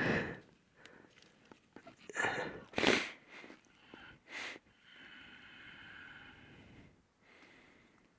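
A person's sharp breathy bursts, several in a row over the first half, then a steady hiss of about two seconds.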